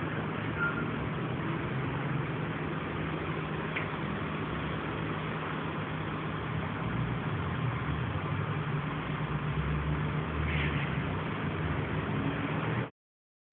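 Steady engine drone with a low, even hum, rising a little in the low end in the second half and cutting off abruptly near the end.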